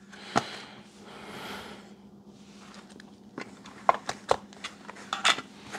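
Handling of a Baofeng UV-5R handheld radio and its plastic desktop charging cradle: soft rustling of the cable and cradle, then a quick series of sharp plastic clicks and knocks in the second half as the radio is seated in the charger.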